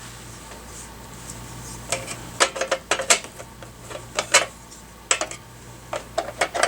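Sharp clicks and clinks of an air-conditioner electrical disconnect box being handled. They begin about two seconds in and come irregularly after a quiet start.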